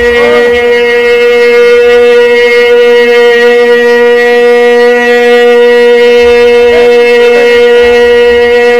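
A single loud note held steady without a break, rich in overtones, with faint voices rising and falling beneath it.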